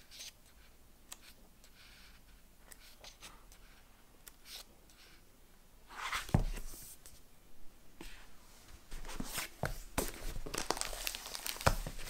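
Paper pages of a paperback book being turned and rustled, with soft crinkling and light taps. Faint at first, the rustling gets louder about halfway through and keeps coming in short bursts.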